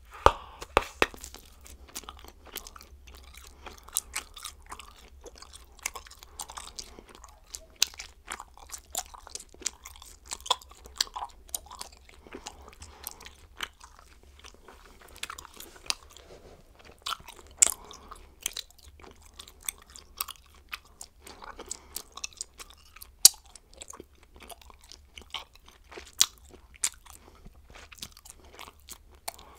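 Bubblegum being chewed close up: irregular wet smacking and clicking, several a second, with a few much louder snaps here and there.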